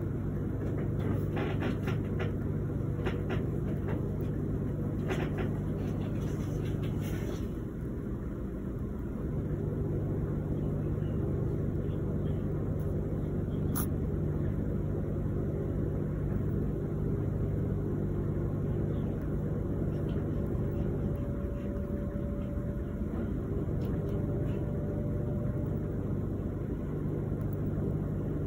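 Steady low hum, like a motor or appliance, with faint clicks in the first seven seconds and one sharp click about fourteen seconds in.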